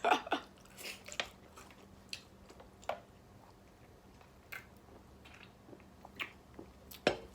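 Close-miked eating sounds: soft chewing with scattered mouth clicks and smacks, a few seconds apart, and a sharper one near the end.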